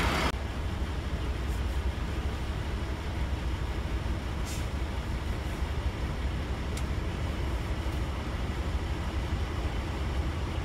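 Steady low rumble of a Scania K360 coach with its engine running, with a few faint clicks over it.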